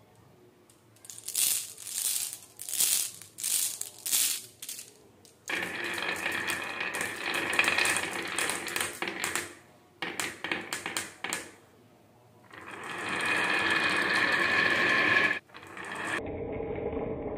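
Glass marbles clicking against each other and the wood as they are let go, then rattling as they roll down a winding groove in a wooden track, in two long runs with scattered clicks between. Near the end the sound changes to a duller, steady one.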